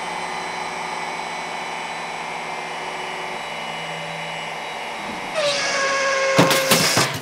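DIY CNC router running: a steady machine whine with several held tones as the gantry travels over the aluminium plate. About five seconds in it grows louder with a slightly falling tone, and a rapid rattling clatter comes near the end.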